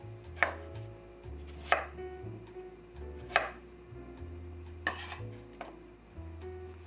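Chef's knife chopping raw potato on a wooden cutting board: four sharp blade strikes against the board, about one to one and a half seconds apart, with a few lighter taps between them.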